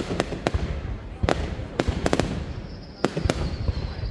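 Fireworks display: aerial shells bursting in a quick, irregular run of sharp bangs over a low rumble, with a thin high whistle coming in about two-thirds of the way through.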